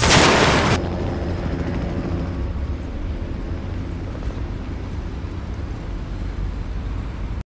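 A loud rushing blast that ends about a second in, then a steady low rumble of the aircraft kind, which cuts off suddenly near the end.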